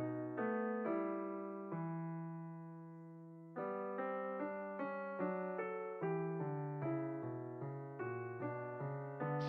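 Solo piano music playing a melody over chords, with a held chord about two seconds in that fades away before quicker notes resume.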